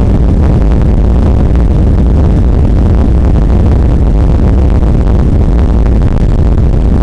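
Jet engines of a Boeing airliner running at high power during the takeoff roll, with the rumble of the wheels on the runway, heard inside the cabin as a loud, steady noise heaviest in the low end.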